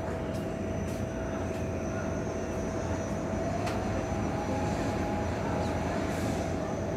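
Steady low rumble of urban background noise with a constant mid-pitched hum running through it and a few faint ticks.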